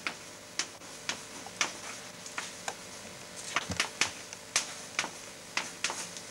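Chalk writing on a blackboard: a string of irregular sharp taps and short scratchy strokes as the letters go down, about two to four a second.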